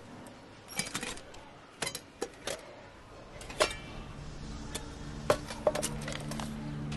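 Stainless steel tiffin containers and a metal tiffin carrier being opened and handled: about ten separate sharp metal clinks and knocks as lids come off and tins are lifted and set down. Soft background music comes in about halfway.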